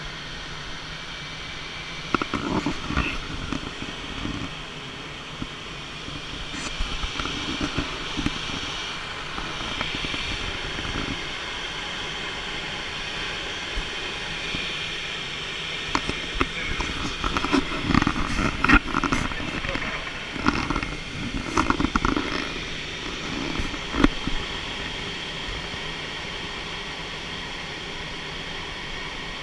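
Steady in-flight cockpit noise of a Cloud Planer motor glider, with intermittent bursts of voices.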